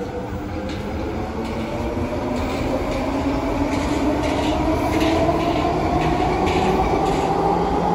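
Vancouver SkyTrain Expo Line train accelerating past, its linear induction motor drive whining in a tone that rises steadily in pitch over the rumble of the wheels on the rails, with light clicking from the wheels. The sound grows a little louder as it goes.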